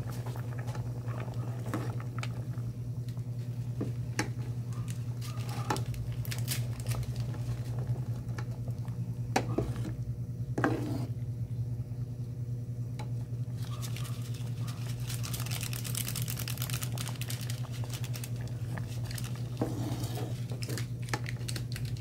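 Metal ladle stirring a pot of mung bean soup, with scattered clinks and a few louder knocks against the metal pot, over a steady low hum.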